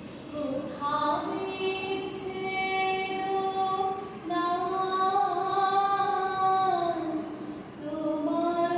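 A woman singing solo, a slow melody of long held notes that glide smoothly from one pitch to the next, with short breaths between phrases.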